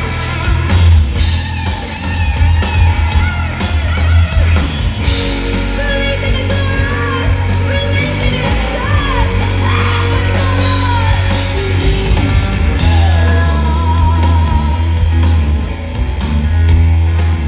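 Live rock band playing loud through a festival sound system: heavy bass, electric guitar and drums, with a woman singing over them.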